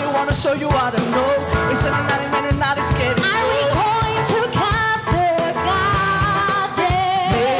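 Live musical-theatre song: singing with vibrato over a piano and drum-kit accompaniment, the drums keeping a steady beat.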